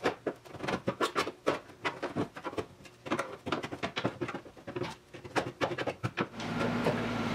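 Irregular, rapid crackling and rustling clicks of a hand rummaging through loose rust flakes and debris inside the rotted rear fender cavity of a 1972 Triumph GT6. The clicking stops near the end, leaving a low steady hum.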